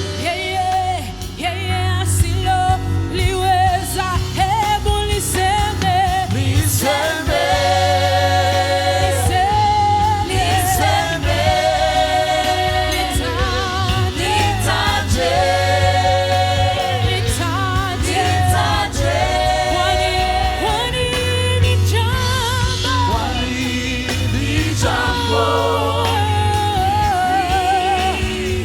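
Worship team singing a Swahili gospel praise song with a choir and band, a strong steady bass under the voices.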